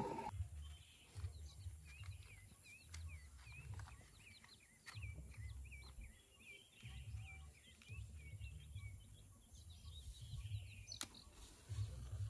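Birds chirping in a long run of short, quick high notes, over low gusts of wind buffeting the microphone. A single sharp click near the end.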